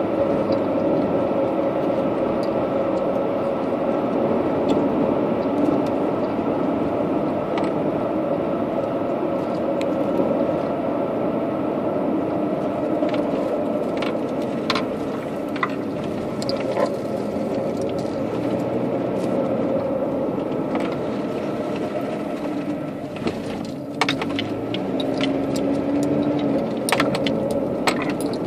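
Car driving on a paved road: a steady drone of engine and tyre noise, with light clicks and rattles that come more often in the second half.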